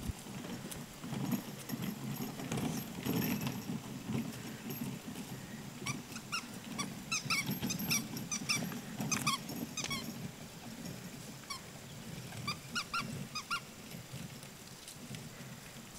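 Red plastic pull wagon rolling over a grass lawn, a low uneven rumble of its wheels, with bursts of short high squeaks in the middle and again later on.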